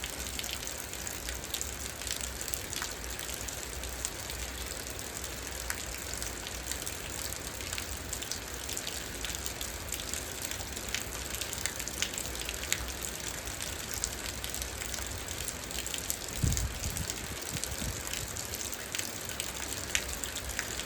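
Steady rain falling, an even hiss with many fine drop clicks. About three-quarters of the way through there is one brief low thump.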